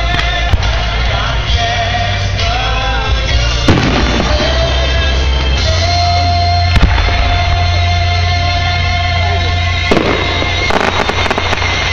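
Music with long held sung notes plays loudly while fireworks go off over it: single bangs every few seconds, then a cluster of crackling bursts near the end.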